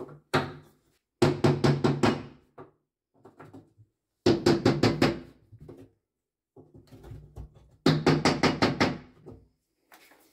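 Hammer tapping staples into a laminate panel over a wooden frame: three bursts of quick strikes, about a second each, near the start, in the middle and near the end, with a hollow ring from the panel after each strike.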